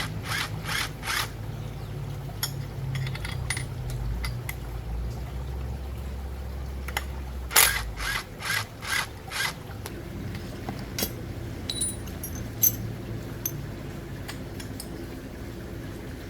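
Hand tools working on chainsaw engine parts: two runs of short scraping or tapping strokes, about two to three a second, near the start and again about halfway through, with scattered clicks over a low steady hum.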